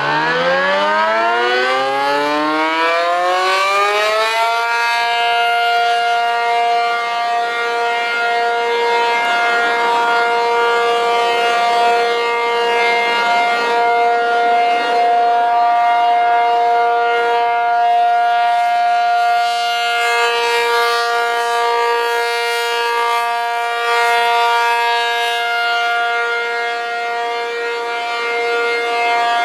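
ACA P-50 dual-tone outdoor warning siren winding up, its two tones rising together over the first four seconds or so, then holding a steady two-note chord: the Alert signal of a monthly siren test. The sound comes back with heavy echoes.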